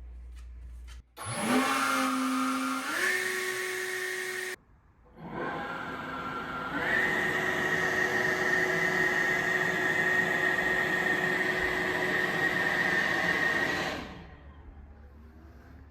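Leaf blower blowing lint out of a dryer vent duct, started twice. Each time its motor whine climbs and then steps up to a higher speed. The first run stops briefly after about three seconds; the second runs steadily for about seven seconds and then winds down near the end.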